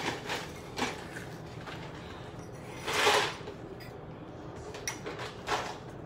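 Metal fork tapping and scraping inside a ceramic mug of microwaved egg: a few short clinks and knocks, with one longer scrape about three seconds in.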